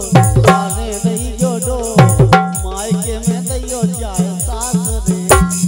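Folk song with a hand drum playing a fast, steady rhythm of deep strokes and a shaken rattle ticking evenly on the beat. A wavering melody line runs over them, with singing in the second half.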